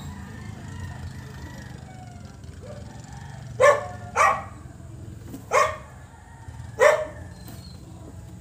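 A dog barking: four short barks spread over the second half, the first two close together.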